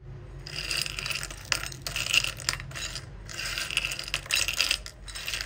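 Hard sugar-coated candied almonds being stirred and scooped by hand on a ceramic plate, clattering against each other and the plate in several bouts of rattling clicks with short pauses between.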